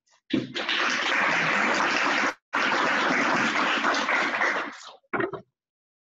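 Audience applauding for about four and a half seconds, with a brief cut-out about two seconds in, then dying away.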